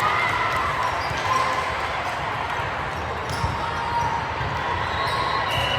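Steady background din of a volleyball gym, a mix of distant voices and ball and floor noise, with one sharper knock about three and a half seconds in.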